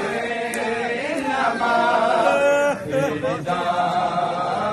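A group of men's voices chanting a noha, a Shia lament, together in held, wavering pitched lines.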